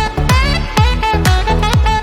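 Background music with a steady beat: electronic swing-style track with a kick drum about twice a second and a bright melodic line.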